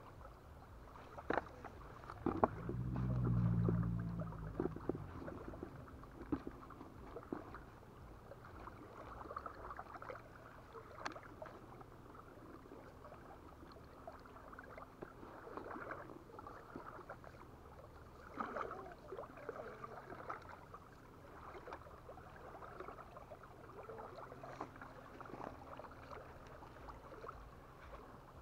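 Small waves lapping faintly at a sandy shore, with scattered soft clicks and rustles of groundbait being packed into a fishing feeder by hand. A brief low rumble swells and fades a few seconds in.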